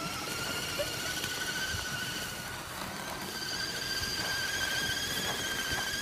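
Electric motor and gear whine of radio-controlled crawler trucks towing a load over snow: one steady, slightly wavering whine whose pitch creeps slowly upward.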